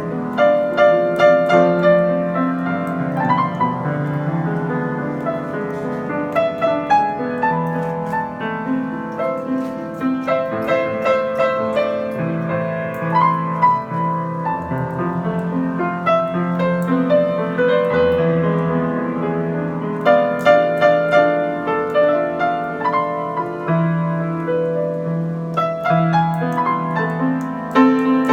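Yamaha G5 grand piano played in a slow, melodic ballad style: a melody over sustained bass notes and chords that ring on.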